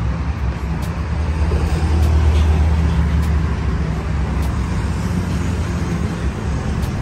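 Road traffic: a motor vehicle's engine running low and steady, growing louder about two seconds in and easing off again.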